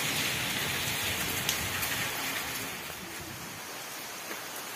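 Heavy rain falling steadily, a dense even hiss of rain. It becomes somewhat quieter about three seconds in.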